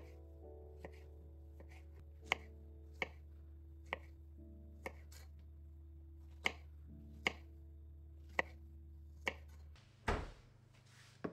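Kitchen knife slicing strawberries and striking a plastic cutting board in sharp taps, roughly once a second and unevenly spaced. A louder dull thump comes near the end.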